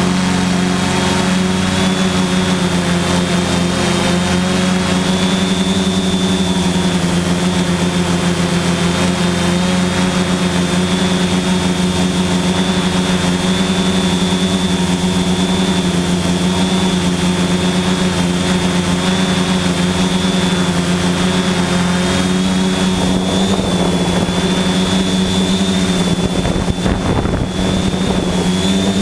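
Quadcopter's electric motors and propellers running steadily in flight, heard close up from a GoPro mounted on the airframe: a loud, even hum with a thin high whine above it.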